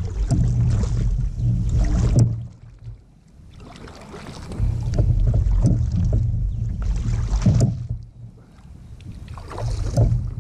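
Water splashing off a kayak paddle's blades in three loud bursts, with quieter gaps between, over a low rumble on the microphone.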